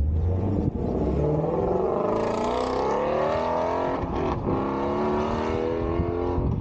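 Ford Mustang Shelby GT350R's 5.2-litre flat-plane-crank V8 accelerating hard past and away, revs climbing. A short break about four seconds in marks a gear change, and the revs climb again after it.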